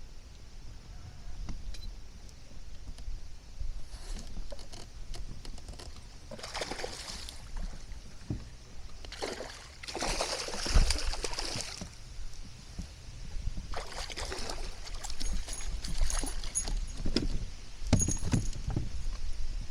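Wind rumbling on the microphone aboard a kayak, with several bursts of water splashing and hissing a second or two long and scattered light knocks against the hull.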